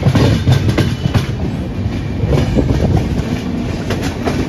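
Steel wheels of a moving Indian Railways passenger coach clattering over the track, loud and close through an open coach door, with a dense rumble and frequent sharp clicks.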